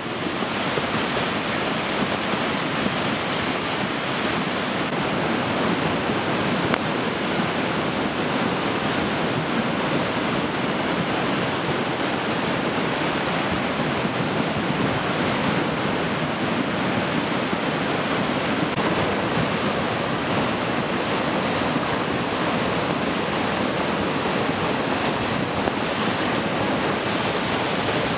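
Muddy floodwater rushing steadily down a boulder-strewn creek bed in flood.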